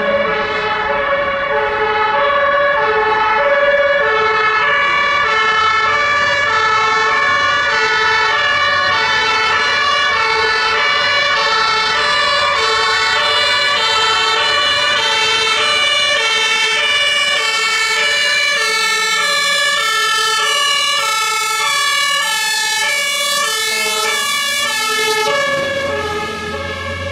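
German two-tone sirens (Martinshorn) of fire engines on an emergency run, several at once, each stepping between its high and low tone out of step with the others. Near the end a heavy truck engine passes close by.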